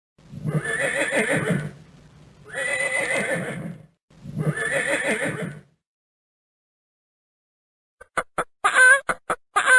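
A farm animal calls three times, each call about a second and a half long and wavering in pitch. After a pause, a rapid run of short, clucking or quacking fowl calls starts near the end.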